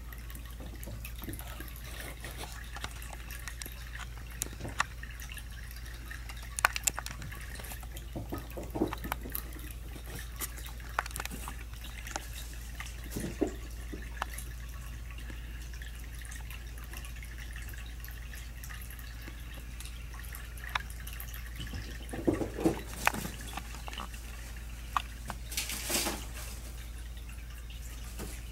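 Kittens moving about: scattered light taps, clicks and rustles, over a steady low hum. A brief louder scratchy rustle comes near the end.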